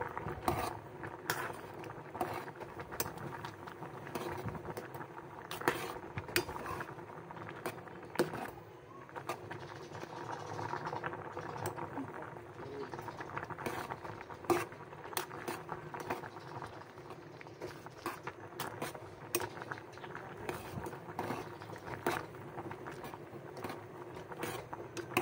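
Pasta water boiling in an aluminium pot, with a metal spoon stirring the macaroni and clinking against the pot many times.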